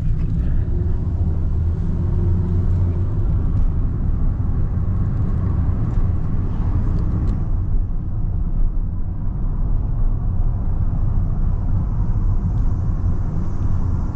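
Steady low rumble of a moving taxi minivan's engine and road noise, heard from inside the cabin.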